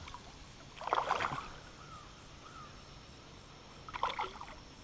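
Water splashing twice, about three seconds apart, as a hooked trout thrashes at the surface beside a kayak.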